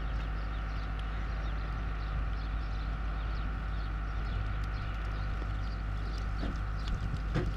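Outdoor background noise with a steady low hum, faint scattered ticks throughout, and a single short knock near the end.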